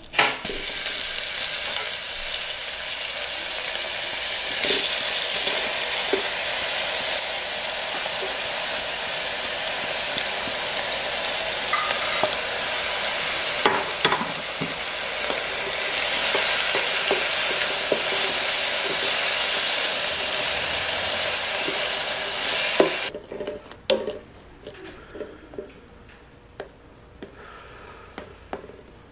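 Diced onions and jalapeños hitting melted butter in a hot stainless steel pan, setting off a loud, steady sizzle. About three quarters of the way through the sizzle cuts off suddenly, and quieter clicks and scrapes of a spatula stirring the cooked-down mixture follow.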